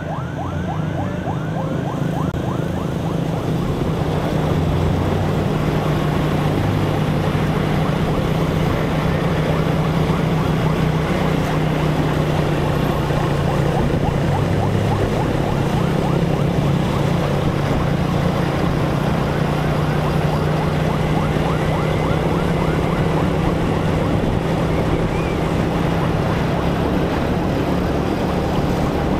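A motor vehicle's engine running steadily at road speed, with wind and road noise. A rapidly warbling siren fades out in the first two seconds.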